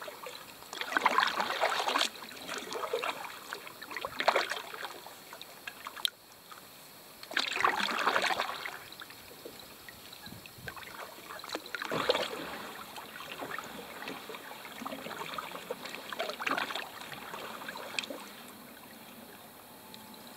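Canoe paddle strokes in calm marsh water: a swish and splash of the blade every few seconds, at an uneven pace, over quiet lapping water.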